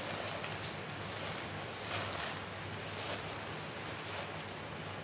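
Plastic-gloved hand tossing salad leaves and vegetables in a plastic bowl, with soft rustling and crinkling every second or so. Underneath is a steady hiss of rain.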